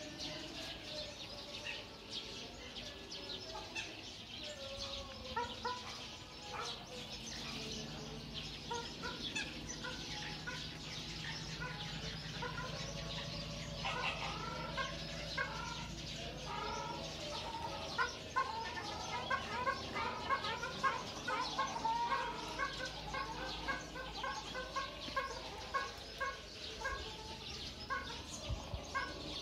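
Birds calling in an aviary: many short repeated calls overlapping each other, getting busier from about halfway through. A low steady hum runs underneath through the middle.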